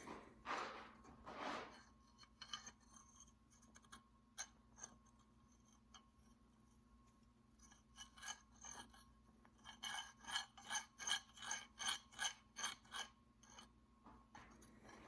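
Hand-forged steel scissor blades, made from a farrier's file, worked against each other: two scrapes at the start and scattered clicks, then a quick run of about a dozen ringing metal snips near the end. The blades are still unsharpened and not yet heat treated.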